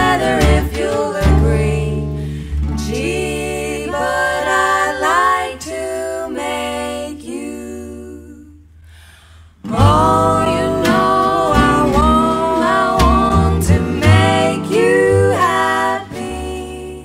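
Music: singing with guitar accompaniment. The music fades low about eight seconds in and comes back in full about a second and a half later.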